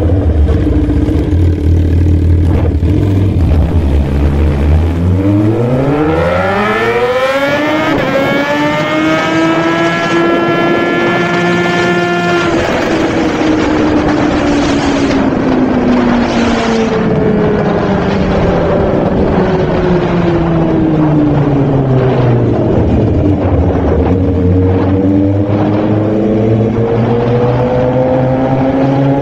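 Suzuki GSX-R1000 superbike's inline-four engine revving hard, its pitch climbing steeply for several seconds to a high steady note, then falling slowly as the bike slows, and rising again near the end.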